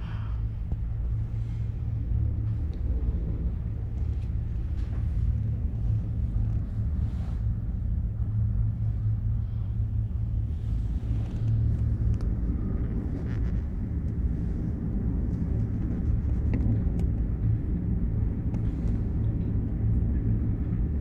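Steady low rumble inside a PEAK 2 PEAK tricable gondola cabin as it travels along its cables, with faint scattered ticks over it.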